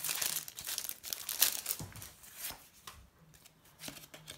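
A Match Attax trading-card packet's wrapper being torn open and crinkled by hand, a dense crackly rustle that dies down to light scattered rustles after about two and a half seconds.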